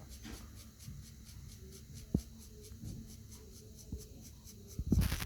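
Faint scratching of a small hand tool working on an iPhone screen to clear off leftover glue, with a sharp tick about two seconds in and a louder rustle or clatter near the end.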